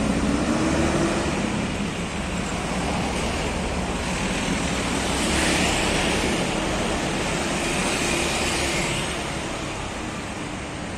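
Street traffic passing close by: cars, minivans and motorcycles going past with a steady rush of engine and tyre noise. The tyre rush swells twice in the second half as vehicles go by near the roadside.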